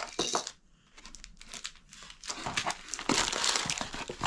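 Plastic packaging crinkling and rustling as it is handled: a short burst at the start, then denser, continuous crinkling from about halfway through.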